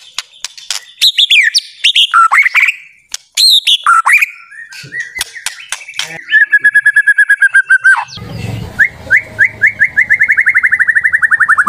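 White-rumped shama (murai batu) singing: a varied run of whistles, sharp clicks and chattering notes, then a long rapid trill that slowly falls in pitch through the second half.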